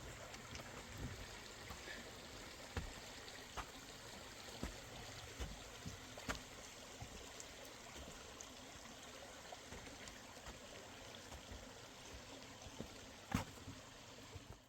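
Creek water running steadily, with a few light knocks scattered through it, the sharpest near the end.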